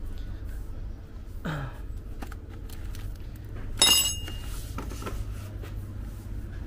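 Small metal parts clattering: one sharp, ringing metallic clatter about four seconds in, with a few lighter clicks, over a steady low hum.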